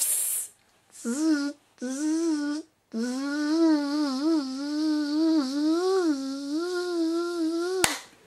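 A spray can hisses briefly, then a voice hums a wavering high tune in three phrases, the last one long. A sharp click near the end.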